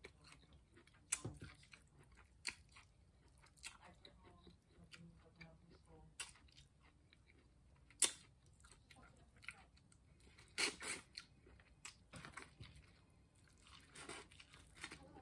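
Chewing and biting into buttered corn on the cob: faint wet chewing with scattered sharp crunches, the loudest about eight seconds in and another cluster near eleven seconds.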